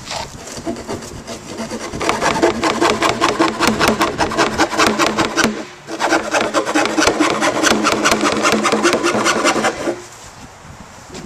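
A hand-held saw blade sawing through the top of a 55-gallon plastic barrel in quick back-and-forth strokes, with a short break about six seconds in. The sawing stops about ten seconds in.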